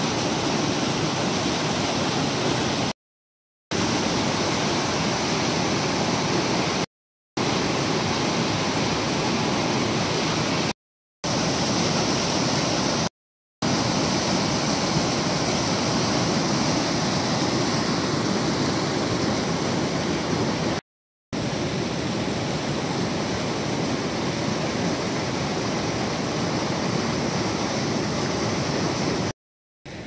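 River water rushing over rocks in rapids: a steady, loud rush. It cuts off to silence for a split second about six times.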